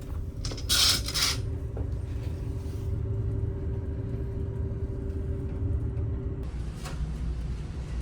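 Steady low rumble of a ship's engines heard from inside the ferry, with a steady hum over it that stops about six and a half seconds in. A short hissing noise about a second in and a faint click near seven seconds.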